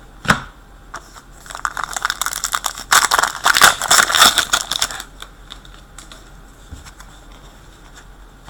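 Hockey trading cards being handled and flicked through, with a dense run of quick rustles and flicks from about two to five seconds in and quieter handling around it.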